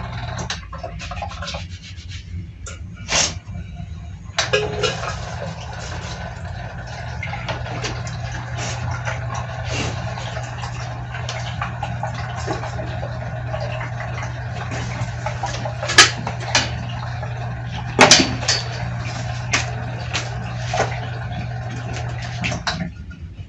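Water pump of a two-tank level-control trainer running with a steady hum while water splashes into the second tank as it fills; a few sharp clicks come through, and the pump and water cut off near the end.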